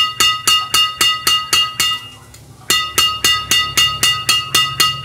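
Strings of a Mizuno Altrax 87i badminton racket, Yonex BG66 Ultimate strung at 26 lbs, tapped repeatedly against the palm, about three to four taps a second. Each tap gives a short, high, ringing ping at the same pitch. The tapping stops briefly about two seconds in, then resumes.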